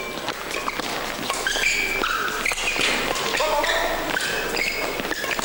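Badminton doubles rally: rackets strike the shuttlecock with sharp cracks, and shoes squeak briefly and often on the court, echoing in a large hall.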